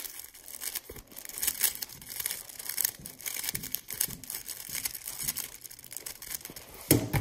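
Stickerless 3x3 speedcube being turned fast by hand, its plastic layers clicking and clacking in quick runs. Near the end comes one louder smack, the hands slapping down on the stackmat timer to stop the solve.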